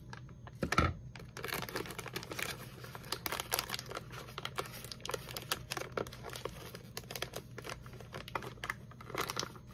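Foil-lined snack bag crinkling and rustling as it is worked and pulled open by hand: a steady run of quick crackles, with a louder thump about a second in.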